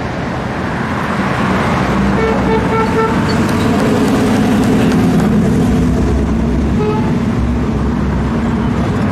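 Cars driving past on a street, their engines making a deep, steady rumble that swells to its loudest about halfway through as an old car goes by. A car horn gives a quick run of short toots about two seconds in and one more toot near seven seconds.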